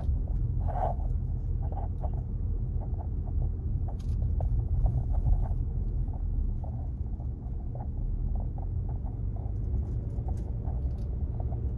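A car driving along: a steady low road rumble with faint scattered clicks over it.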